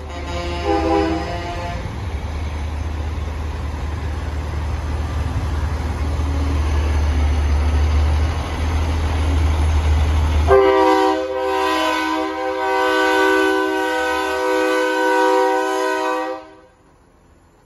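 Passing diesel semi trucks rumble, with a short air-horn toot about a second in. About ten seconds in, a loud multi-tone train-style air horn on a show semi sounds for about six seconds and cuts off suddenly.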